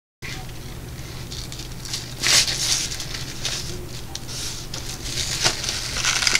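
Rustling and light clattering as a folding mesh food cover is opened and set down over a resin mold, loudest about two seconds in, over a steady low hum.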